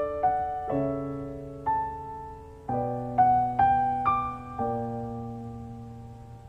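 Background piano music: slow chords struck one after another, each left to ring and fade.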